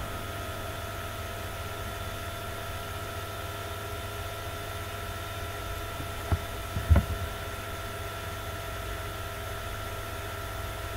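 Steady background hum and hiss with a few faint constant tones, broken by two brief soft knocks about six and seven seconds in.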